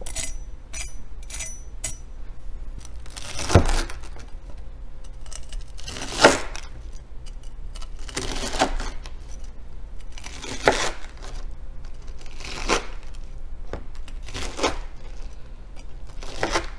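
Chef's knife slicing through the crisp panko crust of a fried chicken katsu cutlet on a plastic cutting board: about seven crunchy cuts roughly two seconds apart, two of them with a sharper knock. Light crackling ticks come in the first couple of seconds.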